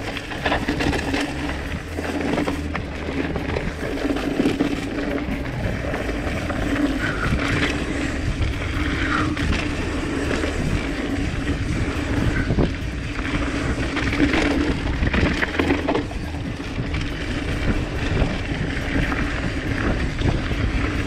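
Mountain bike descending a rocky dirt trail: tyres crunching over gravel and stones, with frequent knocks and rattles from the bike over bumps and a steady rumble of wind noise.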